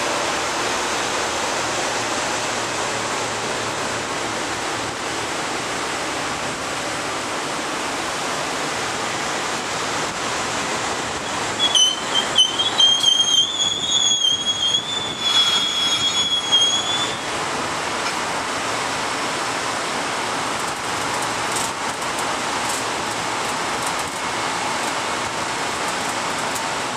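A Metro-North electric multiple-unit commuter train rolling past with a steady rush of wheels on rail. From about 12 to 17 seconds in, a high-pitched wavering wheel squeal rises over it.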